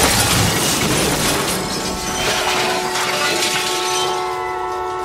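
Car collision: glass shattering and metal debris scattering in the moments after the impact. About two seconds in, a steady held tone with several pitches enters over the fading debris.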